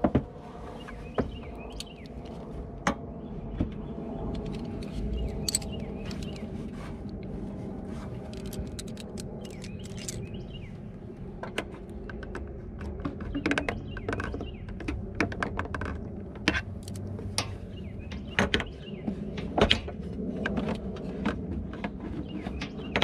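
Hands working a car's plastic headlight housing and the parts around it: scattered clicks, taps and knocks of plastic and metal, more of them in the second half, over a steady low hum.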